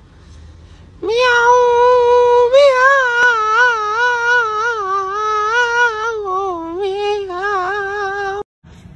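A cat yowling one long call that wavers up and down in pitch. It starts about a second in, lasts about seven seconds and cuts off suddenly near the end.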